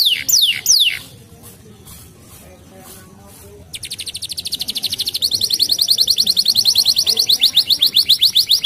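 Canary singing: a run of falling whistled notes, about four a second, stops about a second in. After a brief lull, a fast trill of short repeated notes starts near the middle and grows louder.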